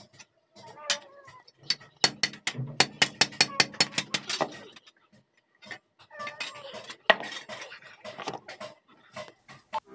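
Small hand hammer tapping on a steel hasua (sickle) blade clamped in a metal holder: a quick run of ringing metallic strikes about two seconds in, then scattered taps.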